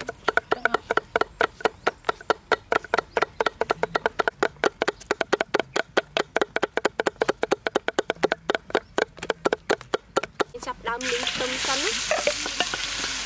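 Cleavers chopping rapidly on a wooden chopping block, cutting red onion and red chillies in quick, even strokes. About eleven seconds in this gives way suddenly to loud sizzling as food hits hot oil in a wok.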